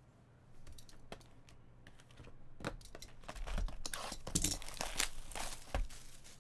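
Foil trading-card pack being torn open and the cards handled: a few light clicks, then about two seconds in a dense run of wrapper crinkling and tearing.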